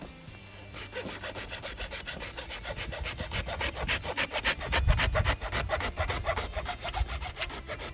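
Hand saw cutting pipe with quick, even back-and-forth strokes, starting about a second in.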